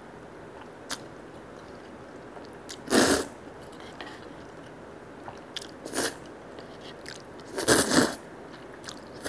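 Konjac noodles in black bean sauce being slurped from a cup: three short slurps about three seconds apart, the last the longest.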